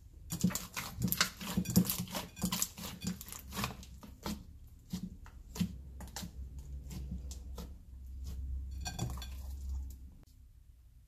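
Toothpaste-based fluffy slime being squeezed and kneaded by hand: a quick run of wet popping and crackling clicks that thins out after about four seconds, then a last burst of pops as the slime is stretched up out of the bowl, stopping about ten seconds in.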